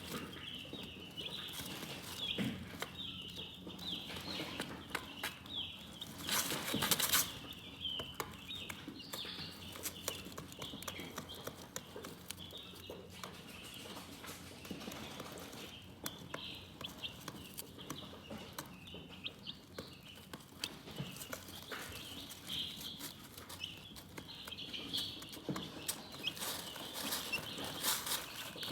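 Chickens chirping, a continuous flurry of short high calls, with scattered light taps and clicks and a brief louder rustle about seven seconds in.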